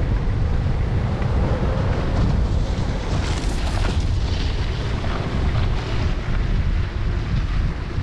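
Wind noise rumbling on a GoPro's microphone while skiing down a groomed piste, with a brighter hiss of skis scraping the snow during a turn about three to four seconds in.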